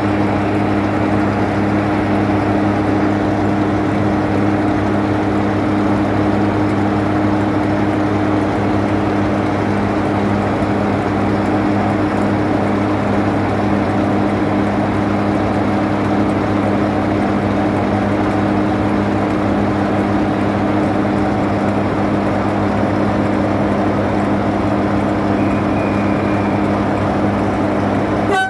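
Class 45 diesel-electric locomotive's Sulzer twin-bank 12-cylinder diesel engine idling, heard close beside the engine room as a loud, steady drone with an even hum.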